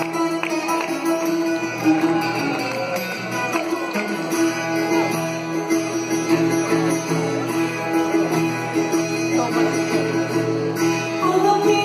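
A rock band playing live: a held keyboard-like drone runs under plucked notes from a small acoustic string instrument of the mandolin kind.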